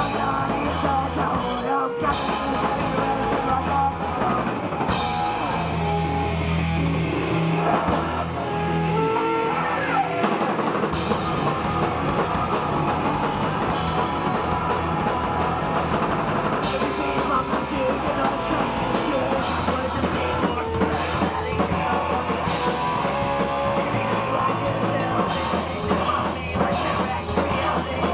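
A live rock band playing: electric bass, electric guitar and drum kit together.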